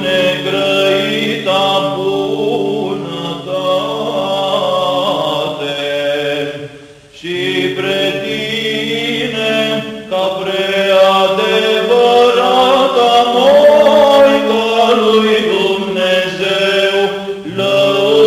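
Romanian Orthodox Byzantine chant in the fourth tone from the Matins service: a long melismatic sung line moving over a steady held low drone, with a brief break near the middle where the drone changes pitch.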